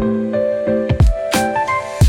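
Background music: held keyboard notes with a few drum hits.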